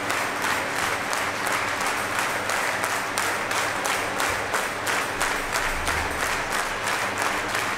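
Arena crowd of ice hockey fans applauding the team, with an even beat of about three to four strokes a second running through the clapping.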